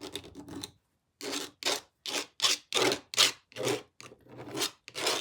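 Paintbrush scrubbing paint onto the puzzle surface: short back-and-forth rubbing strokes, about two to three a second, with a brief pause about a second in.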